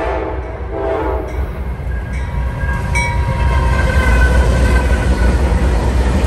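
Norfolk Southern diesel freight locomotives approaching, the air horn chord breaking off about a second in. Then the low rumble of the engines grows loud as the locomotives pass close by.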